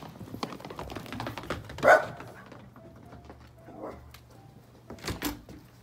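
Miniature poodle barks once, short and loud, about two seconds in, among quick light clicking, with a few knocks near the end.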